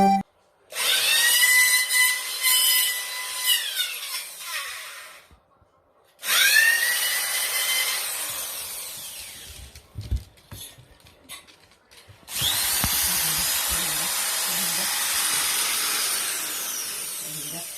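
Electric power tool run three times: each run starts with a rising whine as the motor spins up and then holds steady for a few seconds. The first run winds down within a second or so, the second fades slowly, and a few knocks fall in the pause before the third.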